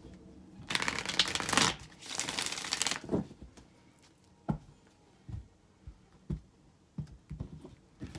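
Tarot cards being shuffled: two dense rustling riffles in the first three seconds, then a series of single short taps and flicks as cards are handled.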